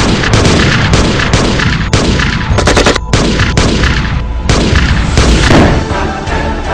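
Film-soundtrack gunfire: rifle and pistol shots in rapid succession, several a second, with a loud explosion near the end.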